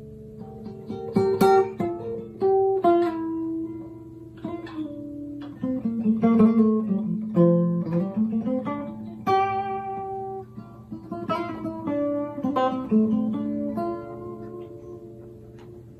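Acoustic guitar music: a run of single plucked notes that ring and fade, with a few strummed chords.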